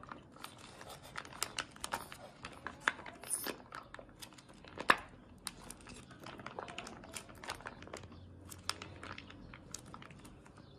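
Plastic mayonnaise pouch crinkling and crackling as it is squeezed by hand, a rapid, irregular run of small crackles with one louder snap about five seconds in.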